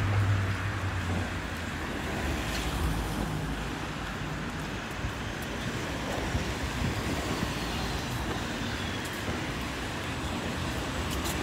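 Steady road traffic noise. A vehicle's low engine hum fades away within the first second or so.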